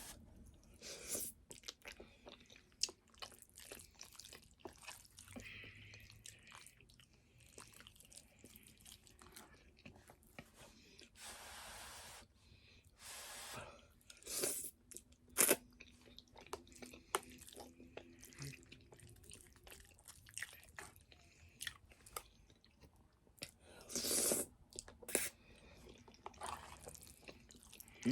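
Close-miked eating of spaghetti with meat sauce: wet chewing and mouth clicks throughout, with a few louder slurps lasting about a second each.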